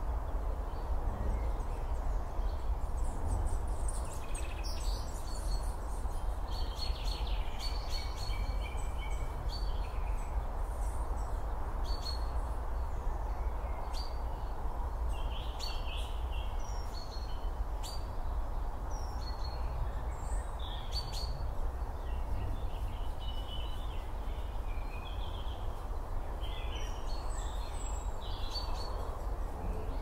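Small birds chirping and calling on and off over a steady outdoor rush with a low rumble.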